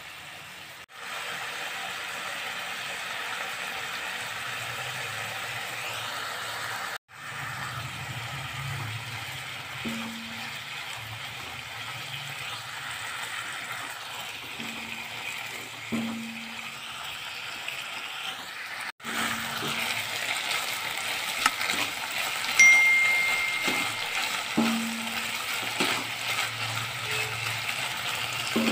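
Boneless chicken pieces sizzling in hot oil in a non-stick wok, the sizzle cutting out for an instant three times. In the second half a silicone spatula stirs the chicken and knocks against the pan several times, with one sharp clink a little past the middle.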